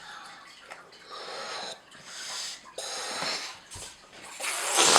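A balloon being blown up by mouth: about four breathy puffs of air, one after another, the last near the end the loudest.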